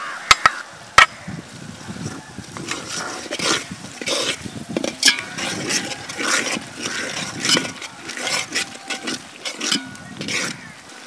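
Three sharp knocks in the first second, then a ladle stirring and scraping through a large pot of chopped onions, green chillies and herbs in oil, in irregular strokes that stop near the end.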